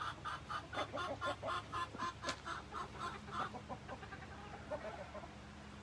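Backyard chickens clucking: a quick run of short clucks, about four a second, that thins out and dies away after about three and a half seconds.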